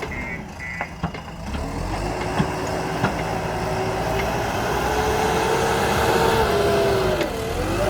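JCB 3DX Super backhoe loader's diesel engine running under load, its pitch rising slowly, dipping sharply near the end and climbing again, with a few sharp knocks in the first three seconds.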